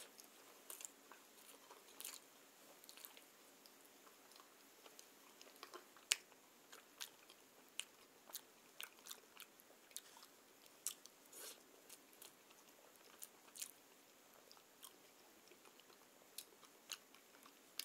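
Close-miked chewing of soft white bread: scattered wet mouth clicks and smacks, quiet overall, with short gaps between them.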